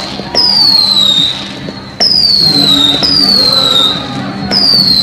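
Whistling fireworks going off one after another: four shrill whistles, each starting suddenly and falling in pitch over about a second.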